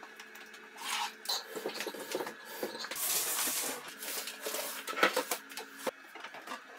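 Battery cables and a battery being handled: scattered clicks and knocks of metal cable ends, with a stretch of scraping about three seconds in as the battery is moved.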